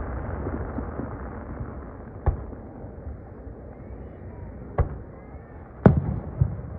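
Aerial firework shells bursting: four sharp bangs, the loudest about six seconds in, each trailed by a fading rumble.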